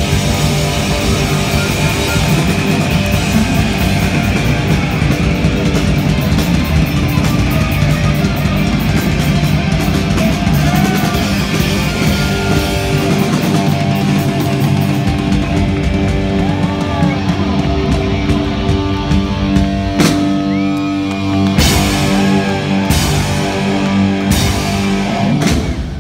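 Live hard-rock band playing loud: electric guitars through Marshall amplifiers, bass and a drum kit. Near the end the band plays a string of sharp full-band stop hits as the song closes.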